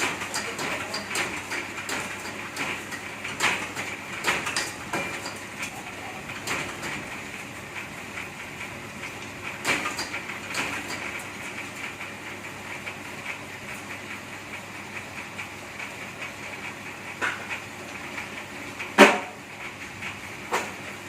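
Bamboo satay-skewer making machine running with a steady high whine, broken by irregular knocks and clacks, the loudest near the end.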